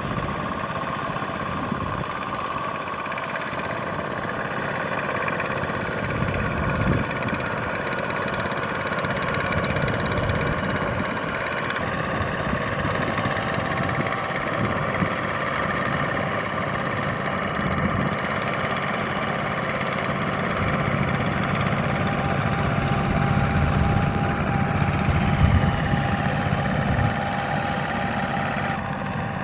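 Tractor diesel engine running steadily, its pitch shifting a little now and then.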